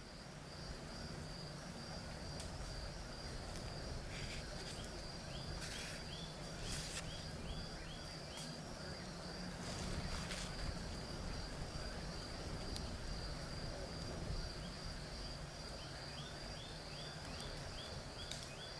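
Crickets chirping in a steady, even pulse over a low steady hum, with two runs of quick short chirps, about four seconds in and again near the end, and a few brief soft rustles.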